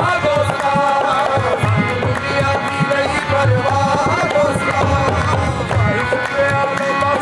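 Live qawwali music: a harmonium plays a gliding melody over a steady tabla rhythm.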